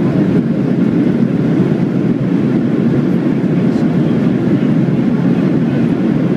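Steady low roar inside the cabin of a Boeing 737 rolling on the ground just after landing: engine and airflow noise heard from a window seat.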